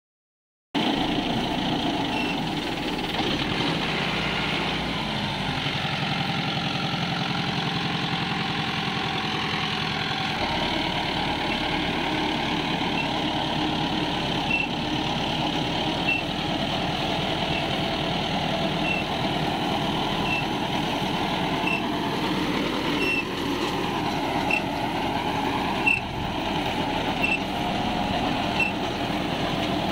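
Mahindra Arjun 605 tractor's diesel engine running steadily under load, pulling an 8.6 ft super seeder whose rotary tiller churns through paddy stubble. The sound starts abruptly just under a second in, and in the second half a short high tick repeats about every second and a half.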